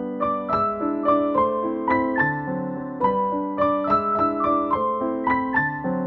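Background piano music: a gentle, flowing run of single notes, about three a second.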